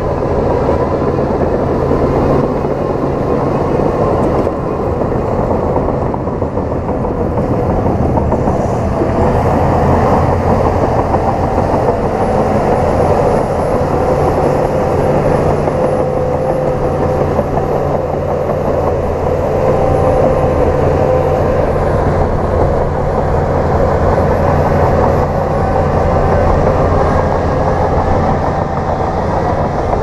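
Heavy diesel engines running steadily: a dump truck with its tipper bed raised, dumping a load of soil, with a bulldozer working close by.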